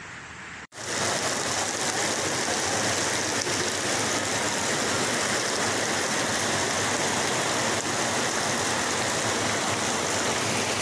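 Fast-flowing muddy floodwater rushing down a street, a loud, steady rush of water. A quieter water noise before it stops abruptly less than a second in.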